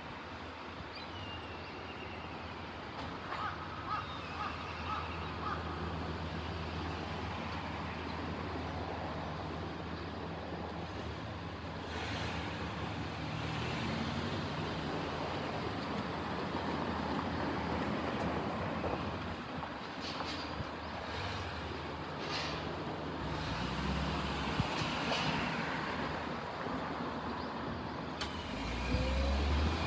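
A heavy road vehicle's engine running steadily, with road traffic noise.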